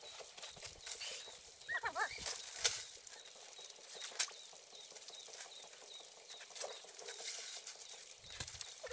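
Faint outdoor ambience: a short warbling call about two seconds in, a string of faint, evenly spaced high chirps, and a few sharp clicks.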